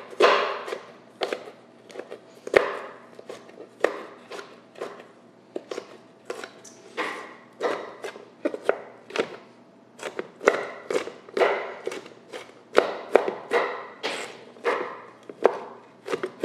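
Kitchen knife chopping fresh cranberries in half on a wooden cutting board: a long, uneven series of sharp knocks of the blade on the board, about two or three a second.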